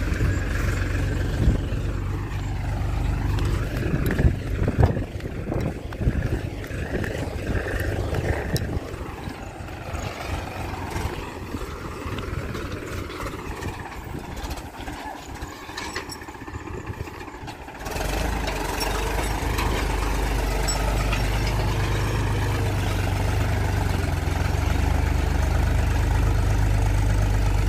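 Powertrac Euro 50 diesel tractor engine running under load while it pulls a cultivator through field soil. The engine note rises and falls in the first half and is quieter in the middle, then the sound turns abruptly louder and steadier about two-thirds of the way in.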